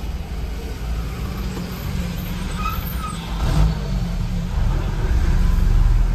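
Car driving along a road: steady engine and tyre rumble, growing louder over the last second or so.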